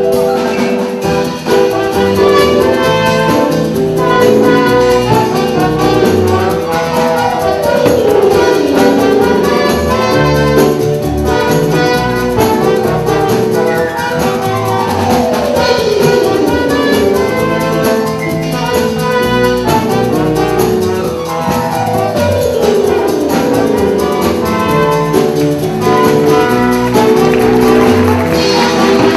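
Band music led by brass, loud and continuous, with several long falling pitch sweeps running through it.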